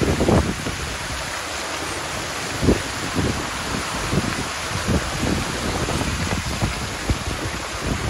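Fountain water jets splashing into a tiled basin and spilling over its rim: a steady rush of falling water. Gusts of wind buffet the microphone now and then, loudest just at the start and again near three seconds in.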